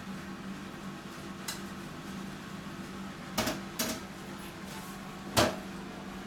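Indoor room tone: a steady low hum, with three short knocks or clatters in the second half, the last the loudest.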